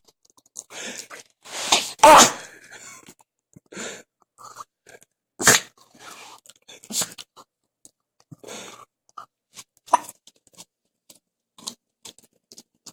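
A Jack Russell Terrier making a string of short, irregular noises, with the loudest ones about two and five and a half seconds in, growing sparser and fainter toward the end.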